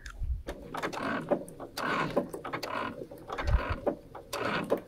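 Brother sewing machine stitching quilt binding in about five short runs with brief stops between them, as the quilt is eased slowly around a corner. There are a couple of low bumps, one at the start and one about three and a half seconds in.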